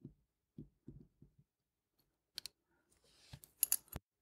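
Scattered soft taps, then sharper small clicks: a pair about two and a half seconds in and a quick cluster near the end, the loudest. These are small watchmaking tools and a wristwatch case being handled on the bench during disassembly.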